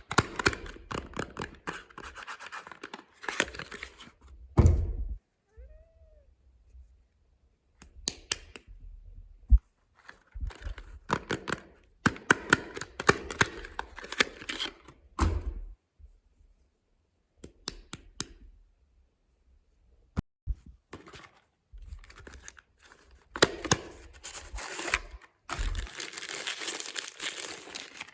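Soap packaging being unwrapped by hand: repeated bursts of crinkling and tearing wrapper with short pauses between them, and a few thumps, the loudest about five seconds in.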